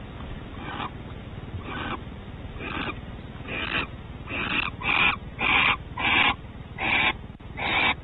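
Barn owls giving a run of about ten hissing calls. The calls come about once a second at first, then grow louder and closer together from about halfway in.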